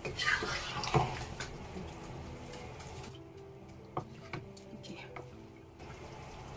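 Wooden spatula stirring rice through hot stock in a non-stick pan: liquid sloshing, with knocks of the spatula against the pan, most of them in the first second and a half and a few more around four seconds in.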